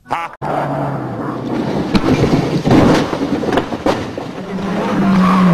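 Rally car crashing off the road into trees and undergrowth: a loud, noisy crash with several sharp knocks about two and four seconds in. An engine note is heard briefly near the start, and another drops in pitch near the end.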